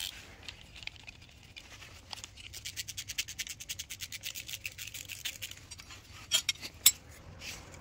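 Hand ratcheting screwdriver with a 10 mm socket clicking rapidly and evenly as it backs out small screws, then a few louder metallic clacks near the end.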